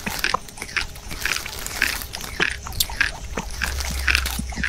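Potato chips being crunched and chewed: irregular crisp crunches, several a second.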